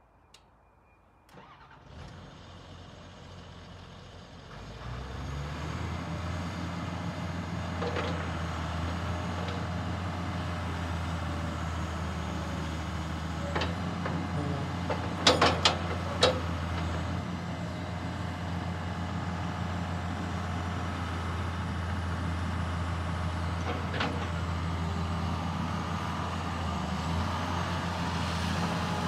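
John Deere 200C LC excavator's 141 hp John Deere diesel engine, faint at first, coming up over the first five seconds and then running steadily with a low hum as the boom, bucket and swing are worked. Single sharp knocks are heard twice, and a quick cluster of loud knocks comes about halfway through.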